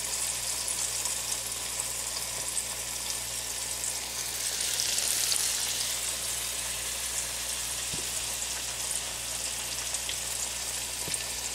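Flour-dredged zucchini slices frying in a pan: a steady sizzle with scattered small crackles, swelling a little louder about five seconds in.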